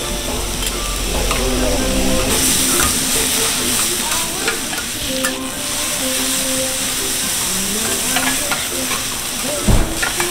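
Beef and sliced onions sizzling on a flat steel griddle, with metal spatulas scraping and clicking against the plate as the food is stirred and flipped. A dull thump sounds near the end.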